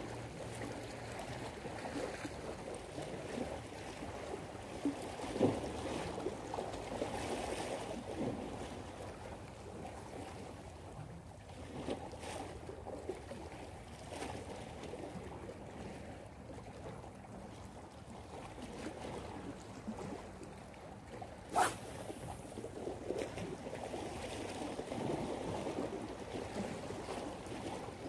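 Small waves washing and lapping against breakwater rocks, a steady wash of water throughout. A single sharp click comes about three-quarters of the way through.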